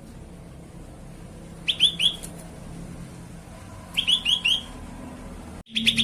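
Grey-bellied bulbul (cucak kelabu) calling: two short phrases of about four quick rising notes, then a faster run of notes starting near the end. A low steady hum runs underneath.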